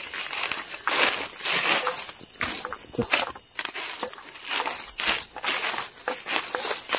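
Footsteps crunching through dry fallen leaves on sloping ground, in an uneven walking rhythm.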